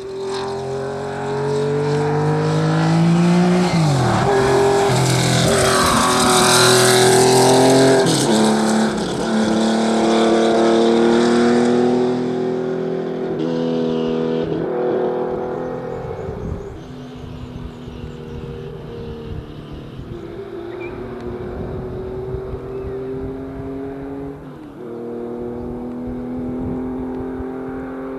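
Classic rally car's engine revving hard through the gears, its pitch climbing and dropping back at each shift several times over, with the sound echoing off the gorge's rock faces. Loudest in the first half, then fainter but still pulling.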